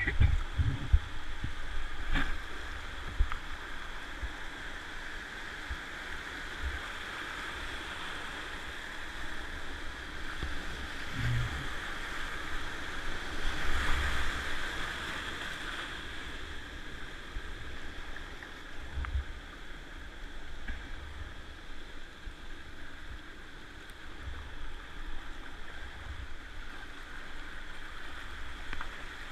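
Whitewater rapids rushing around a kayak as it runs down the river, with scattered low thumps and splashes against the boat. The rush swells about twelve to sixteen seconds in as the kayak drops through a patch of breaking waves.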